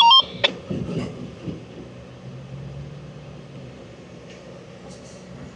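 An off-road vehicle's engine runs low and steady. It starts with a short electronic beep and a click.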